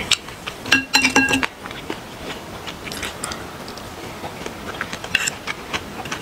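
Chopsticks and a spoon clicking and clinking against dishes and a glass bowl while eating. A cluster of ringing clinks comes about a second in, then lighter scattered clicks.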